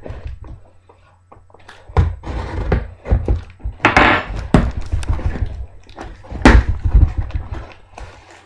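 Cardboard shipping box being torn open by hand: flaps and tape tearing, with knocks and thumps of the box against the desk.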